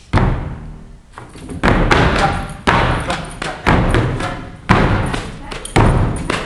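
A steady beat of heavy thuds about once a second, each ringing out in a large hall, with music sounding between the hits.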